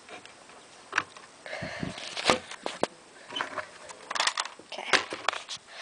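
Scattered plastic clicks, knocks and rustling of a Nerf Night Finder blaster being handled and loaded with a dart.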